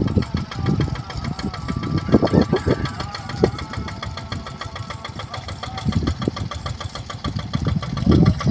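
Yanmar TF65R single-cylinder diesel engine on a Quick Impala two-wheel hand tractor, running steadily under load while ploughing a wet rice paddy, with an even rapid beat of firing strokes.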